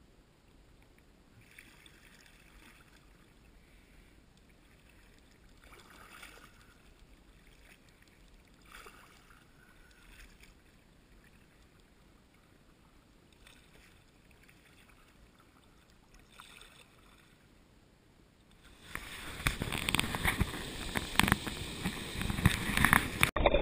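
Kayak paddle dipping into calm creek water, soft splashes every few seconds. About nineteen seconds in, the loud rush of water pouring over a low spillway close by takes over.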